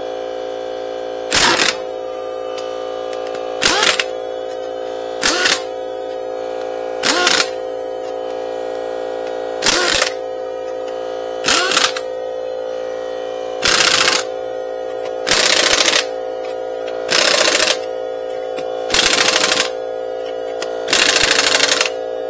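Impact wrench running lug nuts onto a truck wheel in eleven short bursts of hammering about two seconds apart, the later bursts a little longer, over a steady hum.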